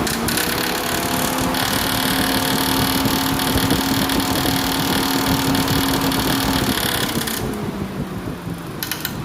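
JAC J6 electric radiator cooling fan, run directly from its sensor wire, spinning at full speed with a steady hum and a rush of air. It winds down about seven seconds in. The blade hub is held on by an improvised metal pin in place of its worn cotter pin.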